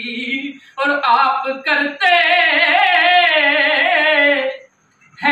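A man singing unaccompanied: a few short phrases, then a long, wavering, ornamented line from about two seconds in that breaks off shortly before the end.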